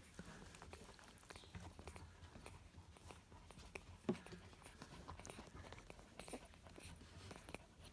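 Newborn puppies suckling at their mother's teats: faint wet smacking and clicking, with one louder brief sound about four seconds in.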